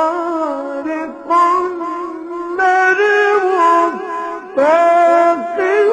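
A male Quran reciter chanting in the melodic mujawwad style, holding long ornamented notes that slide between pitches, with short breaks for breath.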